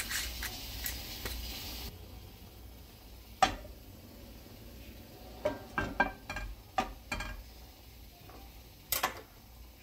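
Metal frying pan knocking and clicking against a gas stove's grate as it is lifted, tilted to spread the oil, and set back down. There is one sharp knock about three and a half seconds in, a cluster of clicks and knocks a couple of seconds later, and another knock near the end. A soft hiss in the first two seconds stops abruptly.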